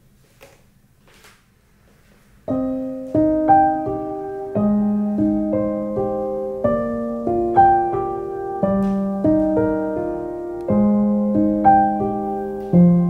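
Slow solo piano music, with a low bass note struck about every two seconds, starting about two and a half seconds in; before it, only a couple of faint clicks.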